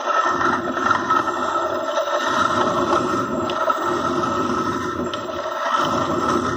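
Car alternator run as a motor from an 800 W ebike controller, spinning steadily with a whine, while the edge of a hand file scrapes against the nut on its spinning shaft to grind it down, the scraping easing every couple of seconds.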